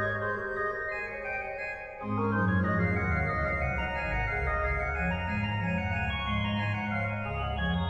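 Background organ music: slow sustained chords over long held bass notes, moving to a new chord about two seconds in.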